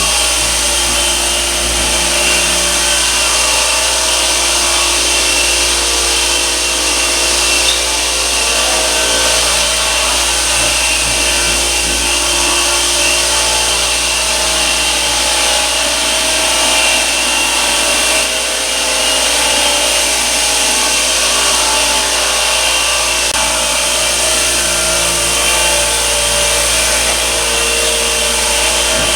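Clarke commercial random orbital floor sander running steadily: a constant electric-motor hum under the hiss of the pad abrading the floor.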